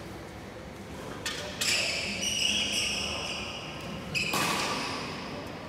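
A few sharp knocks in a large badminton hall: one pair about a second and a half in and another about four seconds in, each followed by a high ringing tone that fades within a second, over the low hum of the hall.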